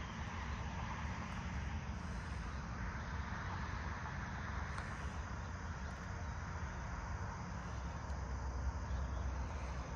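Steady outdoor farm-field ambience: a constant low rumble under a soft, even hiss, with no distinct events.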